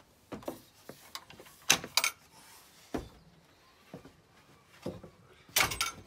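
Footsteps on wooden deck boards: a string of irregular sharp knocks, with a cluster of louder ones near the end.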